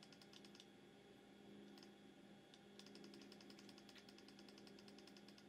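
Near silence: faint room tone, a low steady hum with faint rapid high ticking.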